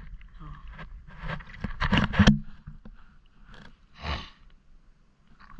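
Water splashing and sloshing close by in irregular bursts, loudest about two seconds in, then fading to a few faint splashes.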